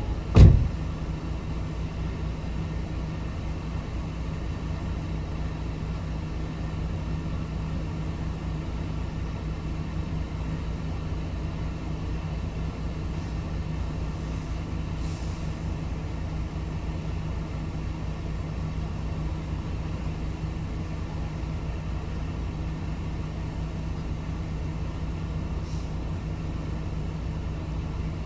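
A vehicle door shuts with a single thump just after the start, then a vehicle engine idles steadily with a low rumble.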